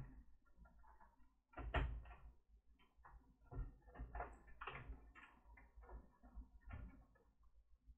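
Quiet, irregular clicks, knocks and scraping of a laptop's plastic case and parts being handled and pried during disassembly, with one louder knock about two seconds in.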